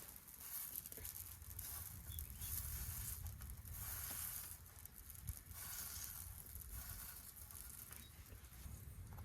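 Bread dough frying in a pan, a faint sizzle that swells and fades.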